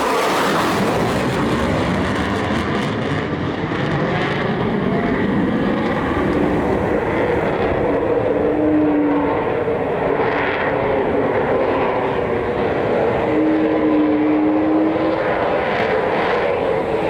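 Jet aircraft engine noise, loud and steady throughout, with a faint held tone that comes and goes twice.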